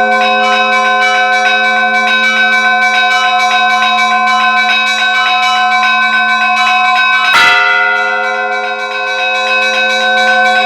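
Russian church bell ringing (zvon): small bells struck rapidly, several strokes a second, over the long ringing of larger bells. One heavy stroke on a big bell comes about seven seconds in.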